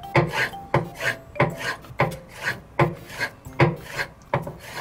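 Kitchen knife slicing raw spear squid into thin ika-somen strips on a cutting board. The strokes come in a steady rhythm of about two a second, each a short scraping slice ending in a knock on the board.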